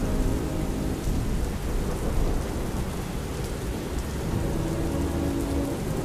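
Thunderstorm sound effect: steady rain with a low, continuous rumble of thunder.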